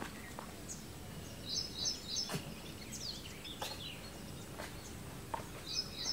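A bird chirps in quick runs of short, high notes, twice, over a quiet outdoor background. Soft wet clicks and squishes from a hand kneading marinated raw chicken in a steel bowl come a few times in between.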